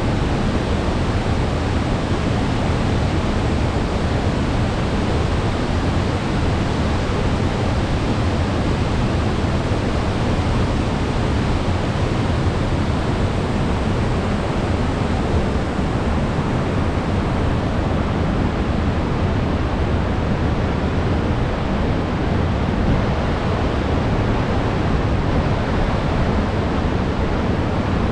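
Sugar River waterfall, a steady loud rush of falling and churning water with a deep rumble underneath.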